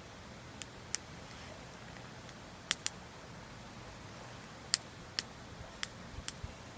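Wood campfire crackling: about nine sharp, irregularly spaced pops and snaps over a steady soft hiss.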